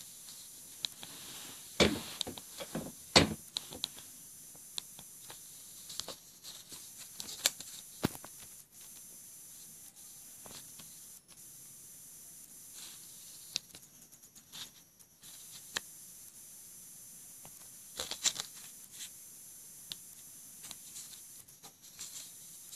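Scattered sharp clicks and taps from a Samsung Galaxy Golden flip phone being handled, its flip and keypad worked by hand, with a quick burst of clicks a couple of seconds in and another later on, over a faint steady hiss.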